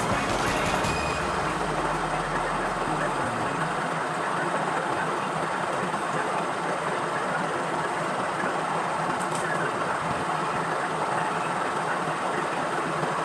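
Power sprayer's small engine running steadily at an even speed, after its repair.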